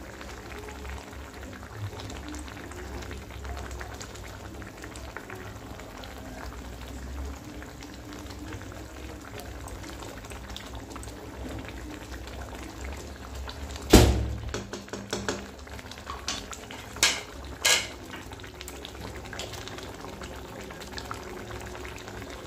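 Egg curry gravy simmering in a metal pan, bubbling steadily, with a sharp knock about two-thirds of the way through followed by a few lighter clicks.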